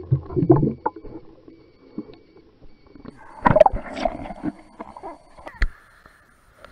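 Pool water sloshing and slapping against a camera at the surface, in irregular surges that are loudest near the start and again around three and a half to four seconds in.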